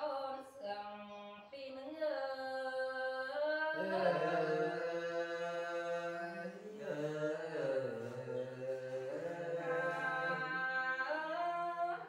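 Unaccompanied singing of a khắp folk song: one voice drawing out long held notes that slide up and down in pitch, with a short breath break about a second and a half in.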